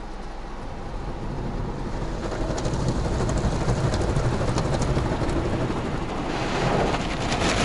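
Automatic car-wash machinery heard from inside the car's cabin: a low mechanical noise building up, with scattered taps of water on the windshield, then a heavier spray of water hitting the glass from about six seconds in.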